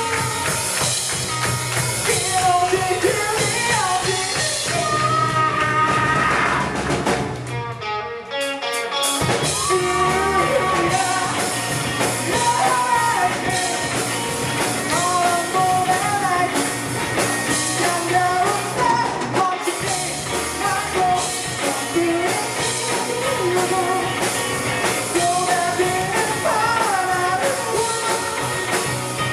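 Live rock band playing with electric guitars, bass and drums under a sung melody. About eight seconds in the band drops out briefly, then comes back in full.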